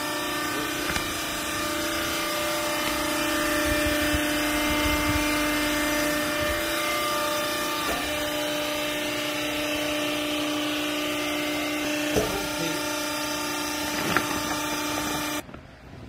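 Hydraulic baling press's motor and pump running with a steady hum of several pitches and a few light knocks, cutting off abruptly near the end.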